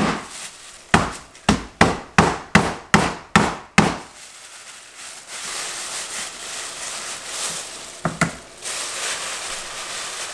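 Abalone being tenderized by pounding through a plastic bag on a cutting board with a Yeti drink bottle used as a hammer: about eight quick thuds in the first four seconds. Then the plastic bag rustles as it is opened, with one more knock about eight seconds in.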